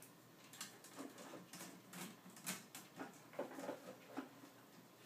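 A small dog's paws and claws tapping and scraping against a wooden shelf unit as it jumps up at it again and again: a string of light, irregular taps.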